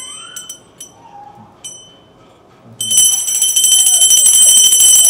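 A puja hand bell struck a few single times, then rung continuously and loudly from about three seconds in, a high metallic ringing that starts off the aarti.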